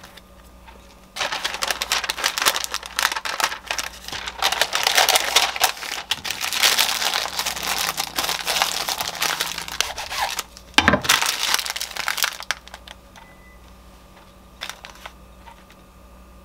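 Brown paper crinkling and rustling as it is folded tightly around a sandwich. The crinkling starts about a second in and goes on for about eleven seconds. One sharp knock comes near the end of it.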